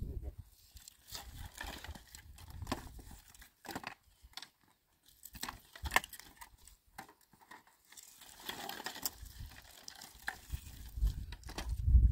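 Dry sticks and brushwood rustling and knocking together as firewood is picked up by hand, heard as scattered crackles and clicks. A low rumble builds near the end.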